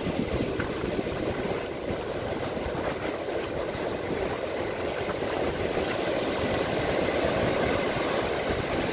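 Ocean surf breaking and washing up the sand, a steady rushing wash, with wind buffeting the microphone.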